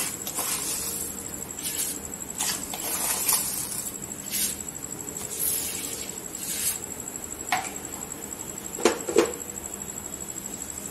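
Plastic measuring spoon scooping sugar from a plastic bowl and tipping it into milk in an aluminium pan: a series of soft scrapes and rustles. Near the end come a few sharp knocks, two close together with a short ring.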